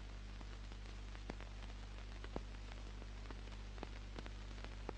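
Background noise of an old analogue film soundtrack: steady hiss and low hum with scattered crackles and clicks, the loudest click about two and a half seconds in.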